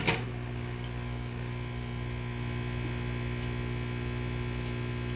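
Steady electrical mains hum, with one sharp click at the very start and a few faint ticks afterwards.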